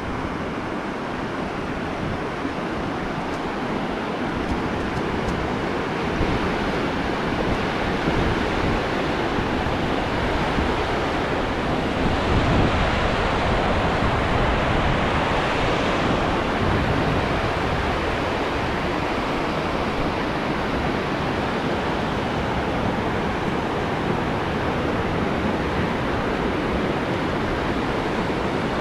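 Steady rush of a river running over rocky rapids, swelling about halfway through and easing off again toward the end.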